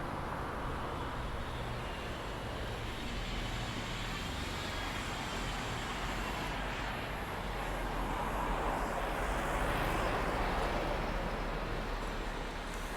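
Road traffic passing along a street, a steady rush of tyres and engines that swells as a vehicle goes by, loudest about eight to eleven seconds in.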